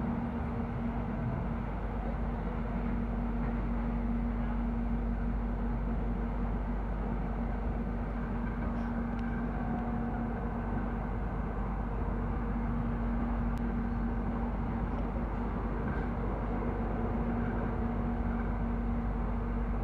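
Cabin noise inside a moving electric airport-rail-link train: a steady rumble of wheels on track with a constant hum running underneath, and a few faint clicks.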